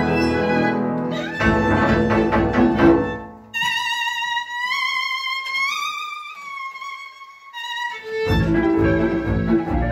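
Hungarian folk string band (violins, viola, double bass and cimbalom) playing. About three and a half seconds in, the band drops out and a single violin carries a high, sliding line alone for about four seconds. Near the end the full band comes back in.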